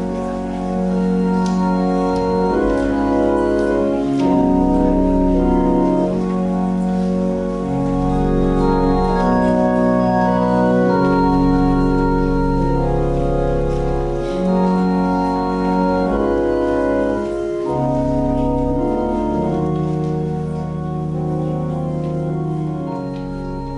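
Organ music: slow, held chords over a sustained bass line that moves to a new note every two seconds or so, fading slightly near the end.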